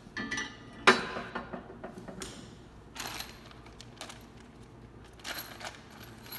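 Steel leaf-plow parts clanking and clinking together as they are handled and fitted onto the mower hitch, with one sharp, ringing clank about a second in and a few lighter clinks after.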